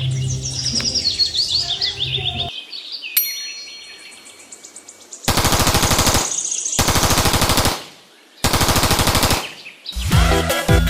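A toy machine gun's electronic firing sound: three bursts of rapid automatic fire, each about a second long, starting about five seconds in. Before them, background music with bird-like chirping.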